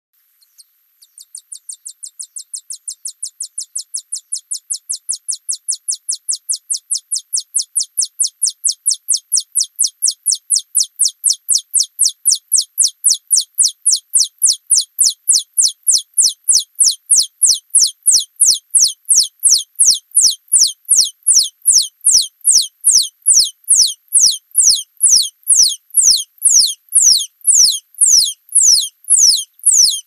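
Alston's singing mouse (Scotinomys teguina) singing its trilled song: a long run of high-pitched notes, each sweeping downward. It starts faint and grows louder, and the notes slowly lengthen and spread out, from about four a second to about two and a half a second.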